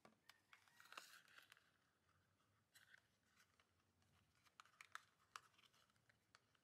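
Faint clicks and rustling of fingers handling a miniature toy snack box, with sharp little taps around one second and five seconds in.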